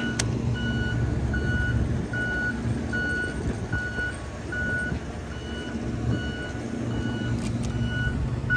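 A vehicle's reversing alarm beeping steadily, one high tone about every three-quarters of a second, over a low continuous rumble.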